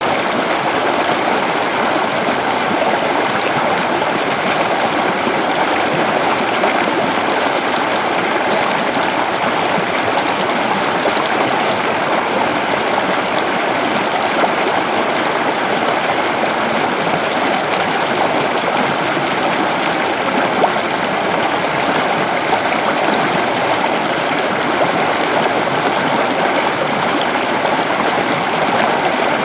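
Steady rush of flowing water, like a stream running over rocks, even and unbroken throughout.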